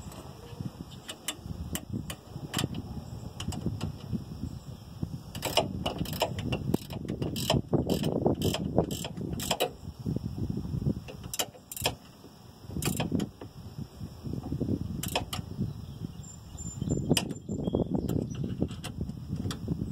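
Hand tools and metal parts clicking and clattering as they are worked, with irregular sharp clicks over a rustling handling noise.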